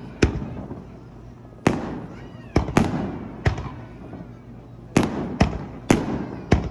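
Aerial fireworks bursting: about ten sharp bangs at irregular intervals, some in quick pairs, each followed by a rolling, fading rumble.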